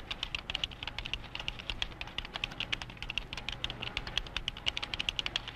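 Fast typing on a typesetting keyboard: a rapid, even stream of key clicks.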